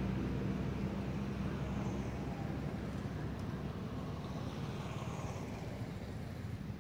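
A motor vehicle's engine hum over outdoor background noise, slowly fading away.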